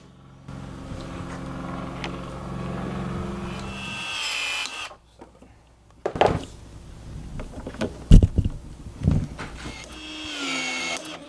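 DeWalt cordless PEX expansion tool running as it expands the end of PEX-a tubing for a cold-expansion fitting, for about four seconds, ending in a short whine. After a short pause come a few sharp knocks as the pipe and fittings are handled on the wooden bench, the loudest about eight seconds in, and the tool runs again briefly near the end.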